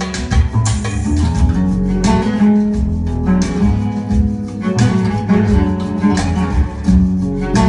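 Acoustic guitar music with strummed and plucked notes over deep bass notes, played back through a single-ended valve amplifier and loudspeakers.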